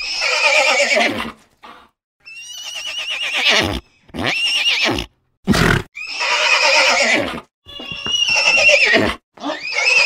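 Horse whinnies, one after another with short gaps, each a shaky, wavering neigh that drops in pitch at its end. A short noisy burst comes about halfway through.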